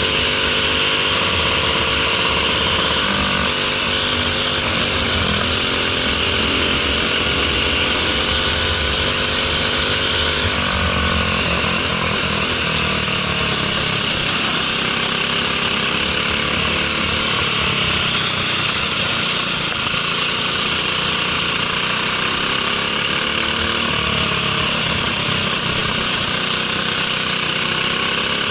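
Briggs & Stratton LO206 single-cylinder four-stroke kart engine heard onboard at racing speed, its pitch climbing and falling again and again as the driver accelerates out of corners and lifts for the turns.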